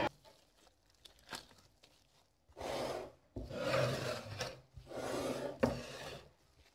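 Gloved hands pulling a piece off soft risen yeast dough in a glass bowl and handling it: three short bursts of handling noise in the second half, with a sharp tap a little before the end.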